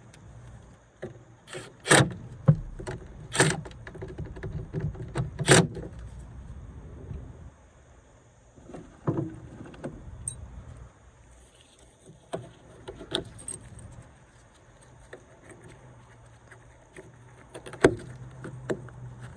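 Sharp metallic clinks and clatter from hand tools or metal parts being handled: about six distinct strikes, spread out irregularly, with quieter rattling between.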